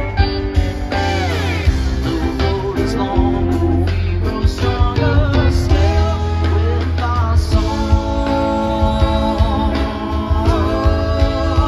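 Live rock band playing: electric guitars, bass, keyboards and drums, with a lead line that slides and bends in pitch over a steady bass and drum groove.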